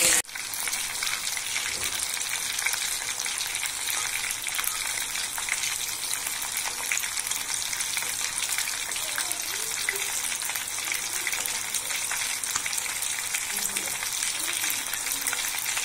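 Whole tandoori-marinated chicken, already cooked through, frying in hot oil in a kadai: a steady sizzle with constant small crackles and pops.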